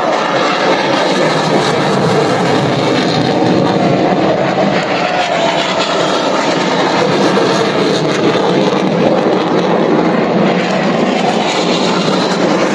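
Jet aircraft engines in a steady, loud roar overhead, with a faint pitch slowly falling through it.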